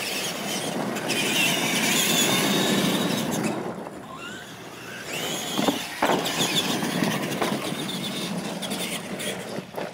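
Radio-controlled retro monster trucks racing on dirt: their electric motors whine up and down with the throttle over steady tyre and gravel noise, with short breaks where the sound cuts.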